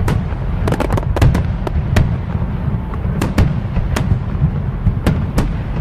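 Fireworks going off: a continuous low rumble of bursts with sharp cracks at irregular intervals, sometimes several in a second.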